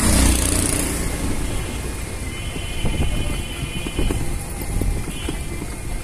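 A three-wheeled CNG auto-rickshaw passing close, its engine loudest in the first second. Steady motor vehicle engine and road noise follow, with a few short knocks.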